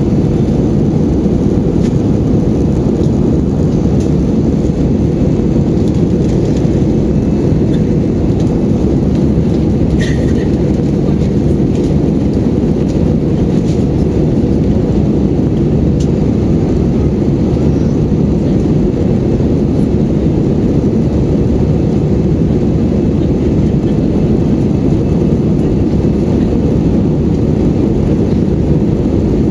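Airbus A320-200 cabin noise in flight: a steady, even low rumble of engines and rushing air, with one faint click about ten seconds in.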